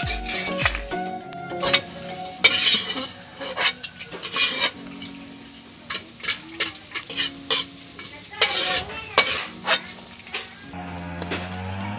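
Dried rice sizzling as it puffs in hot oil in a wok, with a metal ladle scraping and clinking against the wok and a stainless steel bowl. Puffed rice grains rattle as they pour from the ladle into the bowl. Guitar music comes in near the end.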